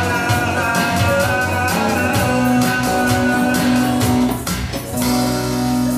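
Live acoustic guitar strummed over electric bass, playing the instrumental close of a song; the sound dips briefly about four and a half seconds in, then a chord is held near the end.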